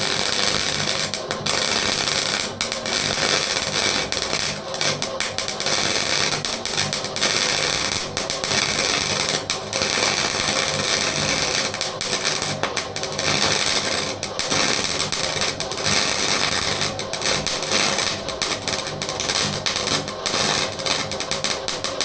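Electric arc welder running a bead on a steel bash bar: a steady loud crackle and sizzle, broken by many brief stutters where the arc drops out for a moment.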